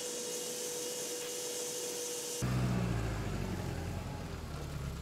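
A Gaggia super-automatic espresso machine running with a steady whine and hiss. About two and a half seconds in it switches abruptly to a car engine's steady low hum.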